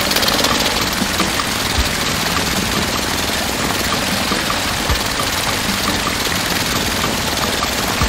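Small motor of a miniature water pump running steadily.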